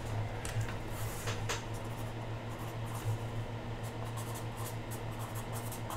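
Marker pen writing on paper, faint scratching strokes, with a few light clicks in the first second and a half. A steady low hum runs underneath.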